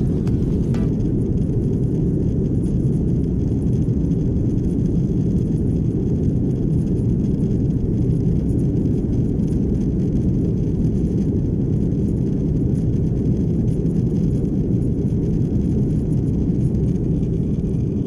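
Steady deep rumble of an airliner's engines and airflow heard inside the passenger cabin.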